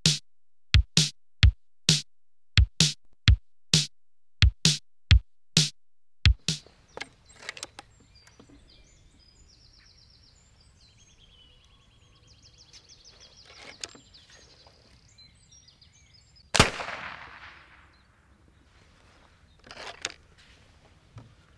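A title-sting jingle made of a quick run of about a dozen sharp electronic percussion hits. It gives way to open-air ambience with faint birdsong, then a single loud bang with a long fading tail, and a smaller burst of noise near the end.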